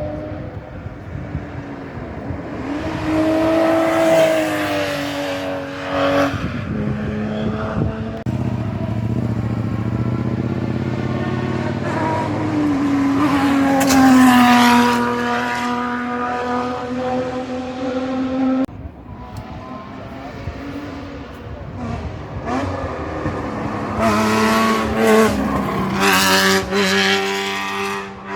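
Historic racing cars' engines passing one after another at full throttle, each revving up through the gears with the pitch rising and dropping at the shifts. The sound changes abruptly a few times as one car's pass gives way to the next.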